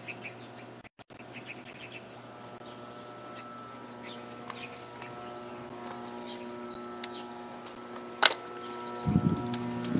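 A small bird chirping over and over, short high chirps at about two a second, over a steady low hum. A sharp click comes near the end, followed by louder low noise in the last second.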